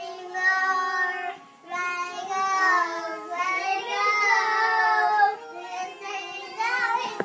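Young children singing along, loud and shrill, to a song playing on the TV, with long held notes.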